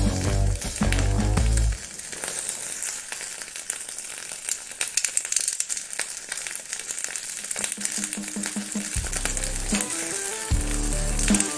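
A metal ball heated to about 1000 degrees sizzling and crackling in raw beaten eggs as the egg cooks against it. Background music with a bass beat plays over the first couple of seconds and comes back in the second half.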